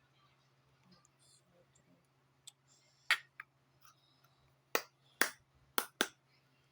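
A run of sharp clicks, a few faint ones and then five loud ones in the second half, from slime and its plastic container being handled.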